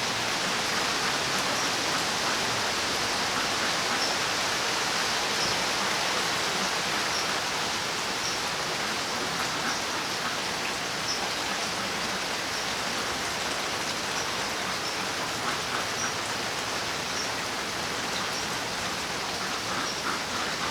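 Steady rain falling, an even hiss of rain with no break.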